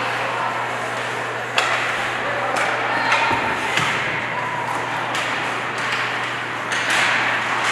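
Ice hockey play in an arena: skates scraping over the ice and sharp clacks of sticks on the puck, about one knock every second or two, over a steady low hum.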